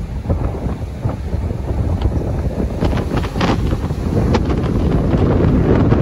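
Large ocean waves breaking and washing in at the water's edge, with strong wind buffeting the microphone. The sound grows steadily louder toward the end.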